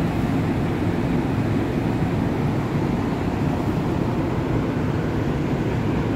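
Steady low rumble of a double-deck passenger train standing at the platform.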